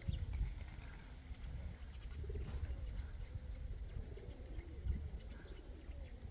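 Domestic pigeons cooing several times, over a steady low rumble.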